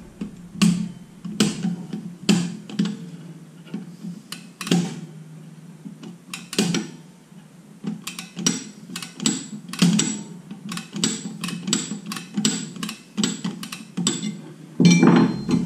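Drum brake shoe adjuster wheel clicking notch by notch as it is turned to spread the brake shoes out toward the drum, taking up excess shoe clearance. The clicks come about once a second at first, then faster, two or three a second, in the second half.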